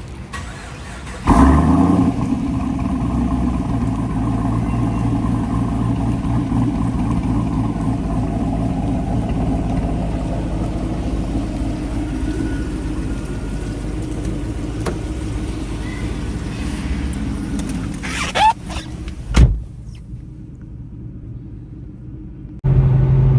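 Pontiac G8 GT's LS3 V8 running steadily under way, with road noise, starting suddenly about a second in. A sharp knock comes near the end, after which it drops quieter.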